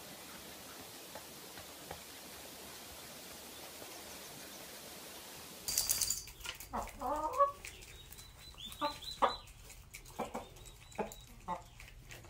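A steady faint hiss, then, about halfway in, domestic hens clucking: several short, separate calls with a few clicks between them.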